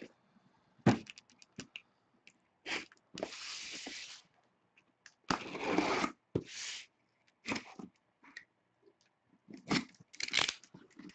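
A cardboard shipping case being set down and opened by hand: scrapes and knocks of cardboard, with two longer tearing stretches about three and five seconds in as the packing tape is torn and the flaps pulled open.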